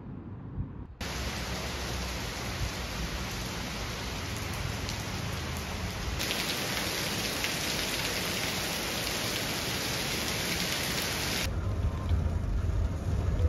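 Heavy rain pouring onto a paved road and grass: a dense, steady hiss that grows brighter and heavier about six seconds in. Near the end it gives way to rain heard from inside a car, duller, with a low rumble under it.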